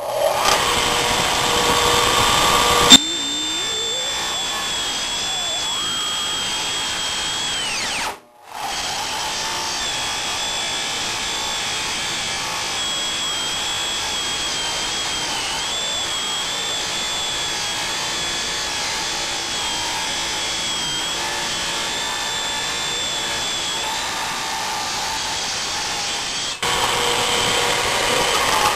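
A 1950s DeWalt radial arm saw running and crosscutting a wide plywood panel, with a steady high whine as the blade passes through the wood. There is a sharp click about three seconds in. The sound drops out for about half a second around eight seconds in, then runs on and grows louder near the end.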